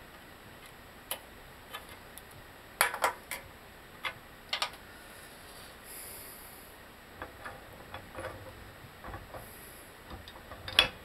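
Scattered sharp metal clicks and clinks of tools and parts being handled on a workbench press setup, with a cluster about three seconds in and louder knocks near the end, over a faint steady hiss.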